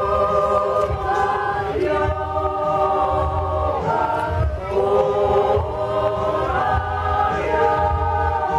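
Women's folk choir in Swiss traditional costume singing unaccompanied, a slow song of long held chords that change every second or two.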